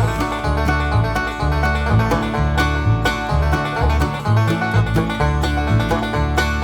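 Background music: fast banjo-led bluegrass with a bouncing bass line.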